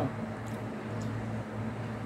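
Soft chewing and mouth sounds of someone eating a mouthful of rice, beans and farofa, with a couple of faint ticks, over a steady low hum.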